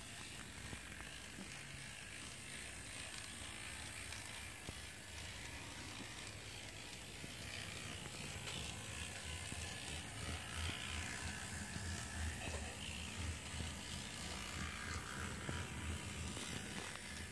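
TT-scale model diesel locomotive (Tillig ČD Cargo class 742) running along the track: a small whirring, rattling drive mechanism with wheels on the rails. It grows louder about halfway through.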